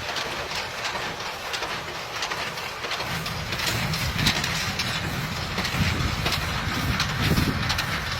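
Storm-force wind gusting, with many small rattles and clatters. The low rumble of the gusts builds about three seconds in.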